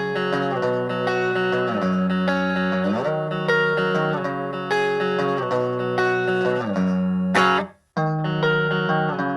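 Electric guitar played through a mini practice amplifier: sustained notes and chords with a few sliding pitch changes. Near the end the sound cuts off abruptly for a moment, then the playing starts again.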